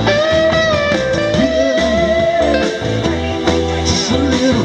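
Live rock band playing an instrumental passage: an electric guitar lead holds long, slightly bent notes over bass and drums, with no singing.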